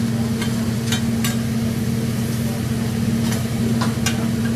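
Metal spatulas clinking on a teppanyaki griddle, several sharp clinks at uneven intervals, over food sizzling and a steady low hum.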